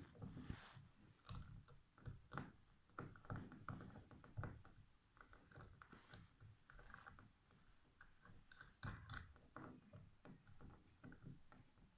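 Faint, irregular clicks and taps of a plastic bulb holder being handled and its casing fitted back together.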